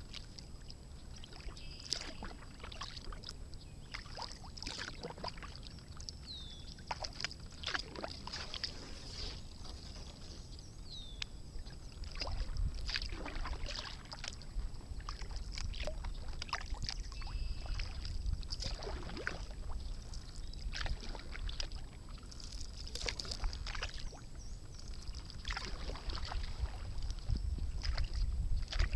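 Kayak paddle strokes: the blades dipping in and water splashing and dripping off them at an irregular pace. Low wind rumble on the microphone grows louder about halfway through.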